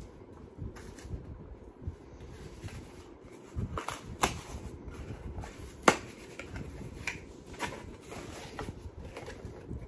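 Hands handling a jarred candle and its packaging: rustling with several sharp clicks and knocks, the loudest about six seconds in.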